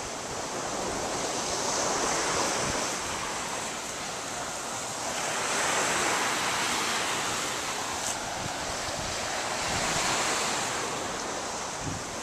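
Surf washing onto a beach, a steady rushing hiss that swells and eases every few seconds, with some wind.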